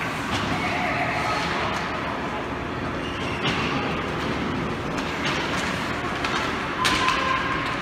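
Ice rink game ambience: a steady noisy din with sharp clacks, likely of sticks and puck, about three and a half and seven seconds in. A short held tone begins with the second clack.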